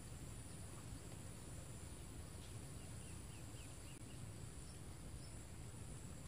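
Steady high-pitched insect drone over a low background rumble, with a quick run of about five chirps in the middle.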